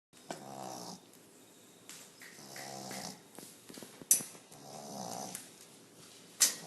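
A boy snoring: three drawn-out snores with a buzzing tone, about two seconds apart. Two sharp clicks come between them, about four seconds in and near the end; they are the loudest sounds.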